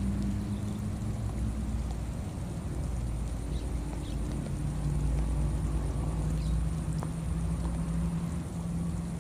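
Steady low engine hum, its pitch a little lower from about halfway through, with a faint steady high whine and a few faint short chirps.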